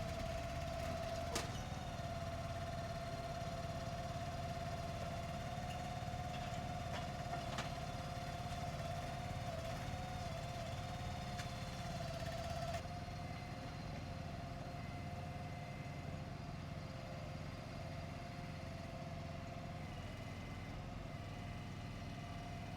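Engine of the delivery machinery running steadily, a low rumble with a steady high whine above it that wavers briefly about ten seconds in.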